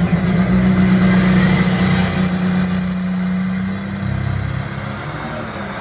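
International Harvester 1256 pulling tractor's diesel engine running hard at the starting line as it builds up to launch, a steady loud drone with a high whine that rises about two seconds in. The note eases a little in the second half.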